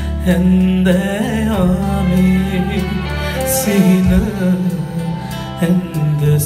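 A live Sinhala pop song: a male singer's amplified voice over a band, with a steady bass line under it. The voice glides through phrases about a second in and again near the middle.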